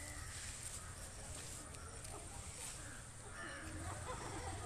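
Outdoor background of faint, distant people's voices over a low steady rumble.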